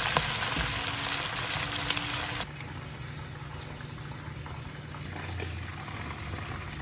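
Sambal ingredients frying in hot oil, a loud steady sizzle that cuts off abruptly about two and a half seconds in. A quieter low steady hum remains.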